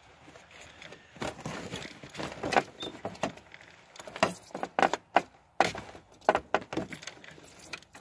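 Irregular metallic clicks and clunks as a Lexus IS300's 2JZ-GE inline-six is turned over slowly by hand with its timing belt exposed.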